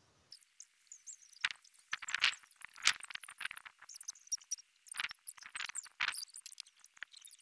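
A bathing sponge rubbing over egg-coated hair to roll it into dreadlocks. It makes irregular scratchy rubbing strokes about once or twice a second, with high squeaky chirps throughout.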